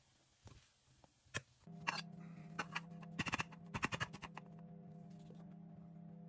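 Spoon, bowl and plate clattering: a run of quick clicks and knocks as fried rice is packed into a bowl and the bowl is turned out onto a plate. A steady low hum comes in under it a couple of seconds in.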